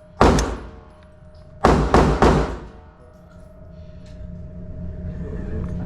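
5.56 micro AR pistol with a 5-inch barrel firing. There is one shot just after the start, then a quick string of three about a second and a half later. Each is a sharp crack with a short echo.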